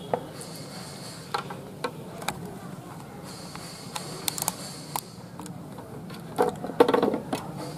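Scattered light clicks and rustles of wire ends being handled at a solar panel's screw-terminal junction box, over a faint steady hum. Near the end comes a brief, louder voice-like sound.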